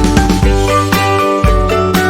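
Background music with a steady beat: pitched melody over a heavy bass line.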